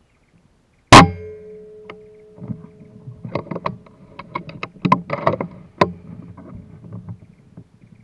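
A single air rifle shot about a second in, sharp and loud, leaving a faint ringing tone that fades over a couple of seconds. It is followed by about three seconds of scattered sharp clicks and rustles.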